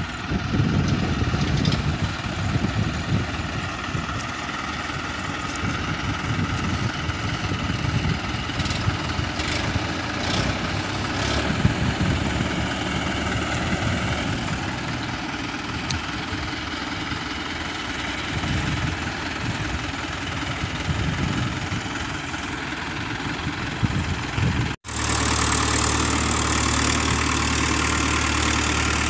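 Diesel tractor engines running steadily, straining in deep mud. About 25 s in the sound cuts out for an instant and gives way to a steadier, deeper engine hum.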